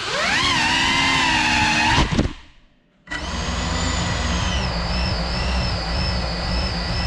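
Cinelog35 cinewhoop quadcopter's motors and props whining, the pitch rising and falling with the throttle. The whine drops away for about a second near the middle, then snaps back to a steady, slightly wavering whine.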